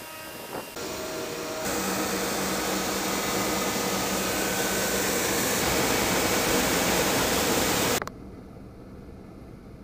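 Industrial okara (tofu pulp) dryer running, a steady rushing machine noise with a low hum, heard close at an open hatch as dried pulp pours down inside. It grows louder about a second and a half in and drops away abruptly about eight seconds in.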